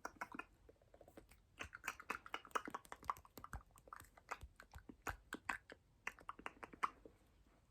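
ASMR mouth sounds close to the microphone: rapid, irregular clicks and smacks, coming in dense clusters.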